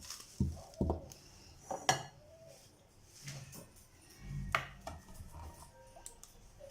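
Kitchen utensils and containers knocking and clinking, with a few sharp knocks, as a strainer and bowl are handled for straining homemade lemon concentrate.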